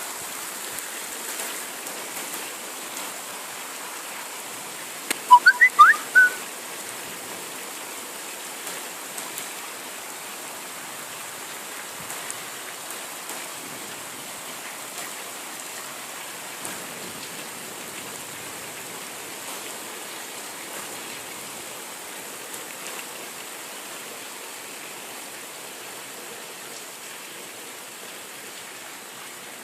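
Moderate rain falling steadily, an even hiss throughout. About five seconds in comes a brief run of short, rising whistled chirps.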